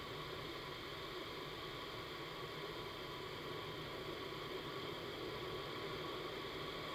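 Vertical wind tunnel's airflow: a steady, even rushing noise that does not change.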